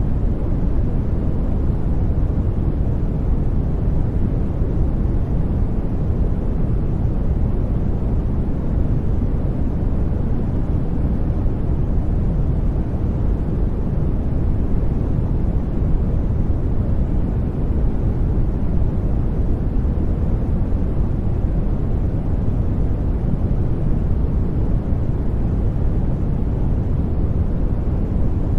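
Steady synthetic sleep noise, a deep, even rumbling hiss with little treble and no changes.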